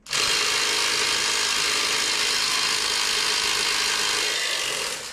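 A power tool running steadily for about five seconds, starting abruptly and stopping near the end.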